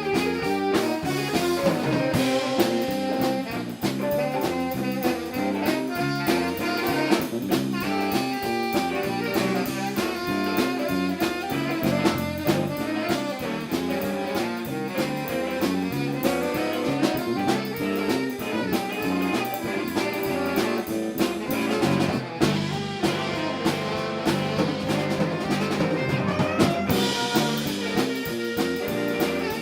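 Live band playing a smooth-jazz instrumental, a saxophone carrying the melody over a drum kit and rhythm section with a steady beat.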